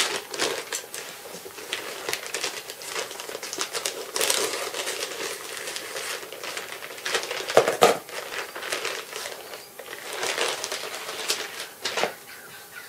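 Black plastic mailing bag crinkling and crackling as it is cut open with scissors and handled, in irregular bursts that are loudest about two-thirds of the way through.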